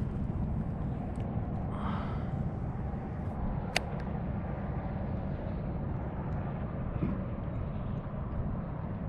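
Steady low rumble of outdoor background noise, with one sharp click a little under four seconds in.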